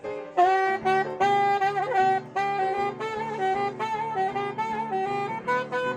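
A live saxophone plays a melody in short held notes with slight bends, over a steady rhythmic accompaniment.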